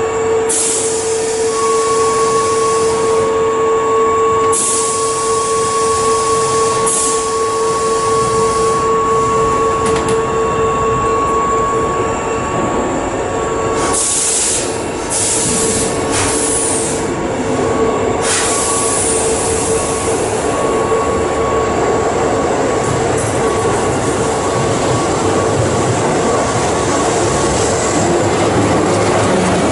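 A Keihan electric commuter train pulling out of an underground station platform, running steadily with a held mechanical whine. Several short hissing bursts and some squealing from the wheels come through, most of them about halfway through.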